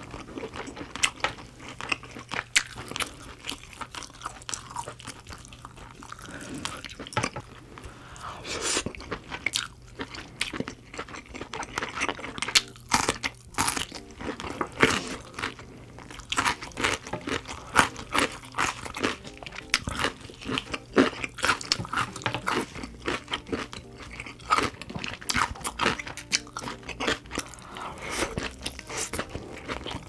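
Close-miked eating of crab: steady crunching and chewing, dense with sharp clicks and cracks.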